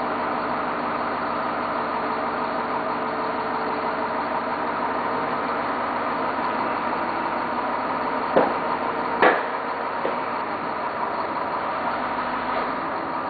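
1990 GMC TC7 boom truck's engine idling steadily. Two sharp knocks come a little under a second apart past the middle, with a fainter one just after.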